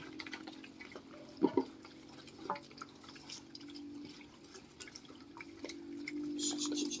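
Piglets eating dry feed, with scattered wet clicks and smacks of chewing and snuffling, and a louder knock about one and a half seconds in. A steady low hum runs underneath.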